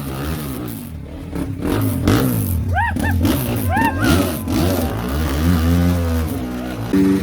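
Motorcycle engine revving up and down repeatedly, the pitch rising and falling about once a second.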